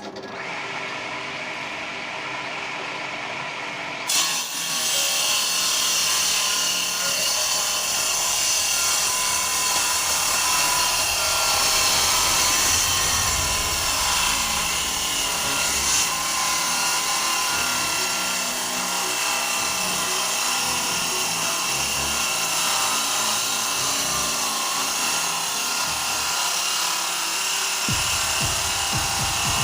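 Homemade table saw driven by a salvaged 300 W washing-machine motor: the circular blade spins, then from about four seconds in rips along the grain of a board about 2 cm thick, with a steady cutting noise.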